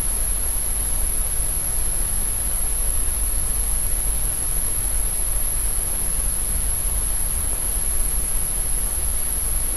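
Steady recording hiss with a low mains hum and a thin high-pitched whine, with no voice: the background noise of an old recording.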